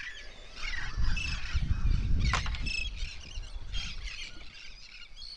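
A flock of seabirds calling overhead: many short, high chirps and squawks overlapping throughout, with a low rumble from about one to three seconds in and one sharp click just after two seconds.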